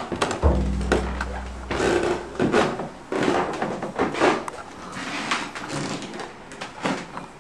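Irregular knocks, scrapes and rubbing of objects being handled and moved in a small room, with a low hum for about a second near the start.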